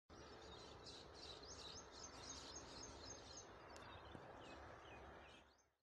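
Faint outdoor ambience: small birds chirping in quick, repeated short notes over a low steady hum.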